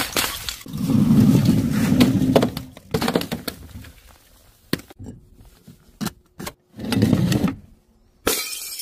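Objects dropped from a height crashing onto a tiled floor one after another: a glass bottle breaking, then several more impacts and clatters. The drops are separated by short, quieter gaps.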